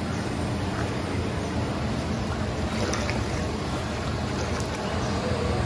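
Steady rushing noise from big pots of chickpeas boiling over gas burners, with the broth sloshing as it is stirred.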